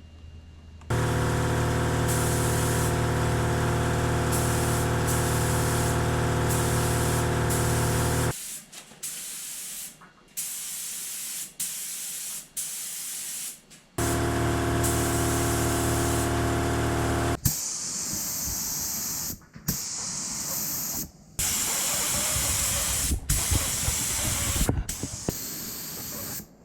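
A small electric motor runs steadily for several seconds, twice. Between and after those runs, paint spray hisses in short passes of a second or two that start and stop abruptly, as the repaired FRP aero part is sprayed.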